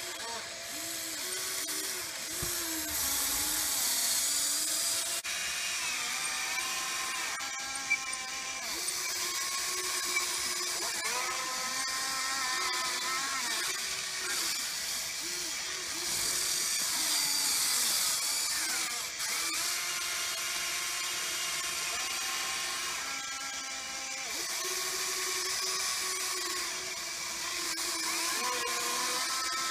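Small electric motors and gearboxes of a Huina 580 radio-controlled excavator whining as it digs, the pitch rising and falling and starting and stopping every second or two as the boom, arm and bucket move.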